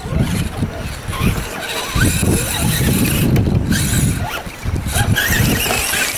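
Radio-controlled scale crawler truck clawing up a loose gravel slope, its small electric drive whining as the tyres spin and scrabble on stones, under a loud, uneven low rumble.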